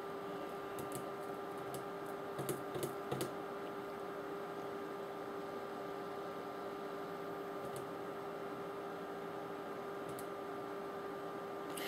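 Quiet room tone with a steady hum, broken by a few light clicks: a cluster of three or four about two and a half to three seconds in, and single ones later.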